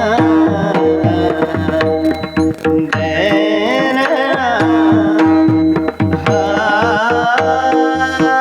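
Marathi kirtan chal sung by male voices in a duet, with tabla strokes keeping a steady beat under a held drone tone.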